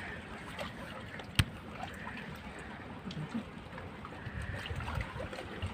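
Sea water lapping and sloshing, an even wash of noise, with one sharp knock about a second and a half in.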